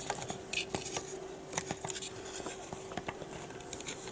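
Light clicks and taps of small wires and plastic parts being handled and bent by hand, scattered irregularly over a faint steady hum.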